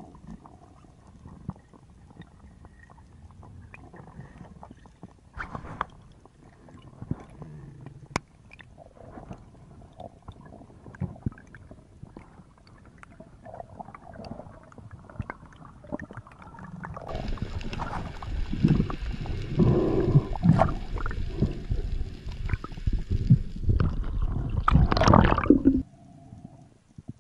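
Underwater water noise picked up by a diver's camera housing, with scattered faint clicks. About two-thirds of the way in it becomes a much louder stretch of rushing water and low rumbling, which cuts off abruptly shortly before the end.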